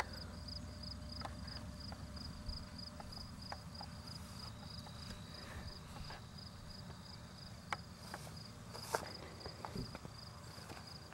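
Faint insect chirping as a fast, even run of high-pitched pulses, over a low rumble, with a few soft clicks.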